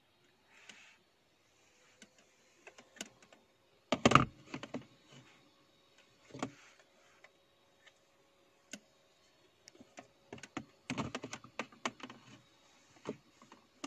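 Hard plastic clicks and knocks from a cup-shaped USB car air purifier being handled and set down into a car's cup holder. A louder knock comes about four seconds in, and a quick run of clicks and taps comes near the end.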